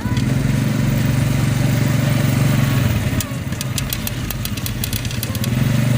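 A motor vehicle engine running with a steady low hum, which fades about halfway through and comes back near the end, with a run of light clicks in between.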